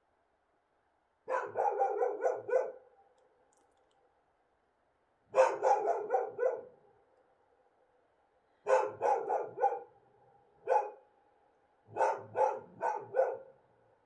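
Feral dogs barking in four quick volleys of four or five barks each, a few seconds apart, with a single bark between the last two volleys.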